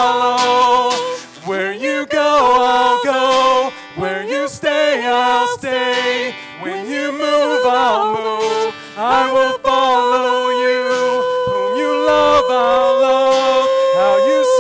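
Live worship song: a voice singing a slow melody over guitar, ending on one long held note over the last few seconds.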